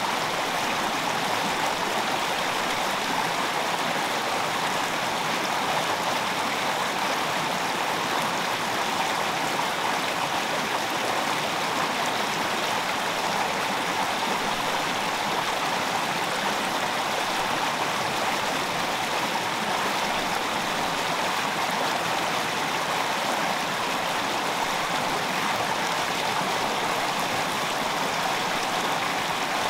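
Shallow stream running steadily over rocks, an even rushing of water.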